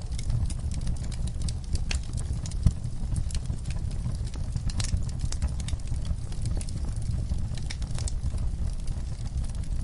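Wood fire burning in a fireplace: a steady low rumble of flames with frequent irregular crackles and pops from the burning logs, one louder snap about three seconds in.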